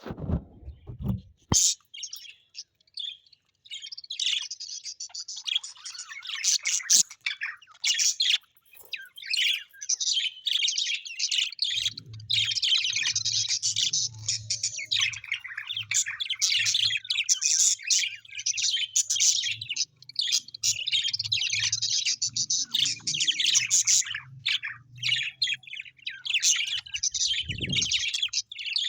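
A group of small parrots chirping and twittering continuously in a busy, high chatter. A low hum joins about twelve seconds in, with a low thump at the start and another near the end.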